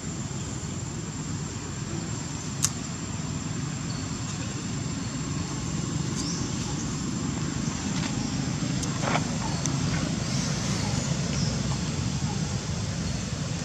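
Steady low rumble of outdoor background noise with a thin, continuous high whine, and a single sharp click about two and a half seconds in.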